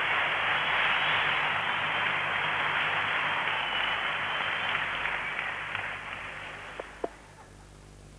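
Arena crowd applauding after a point, fading away over about six seconds, then two sharp ticks of a table tennis ball bouncing near the end.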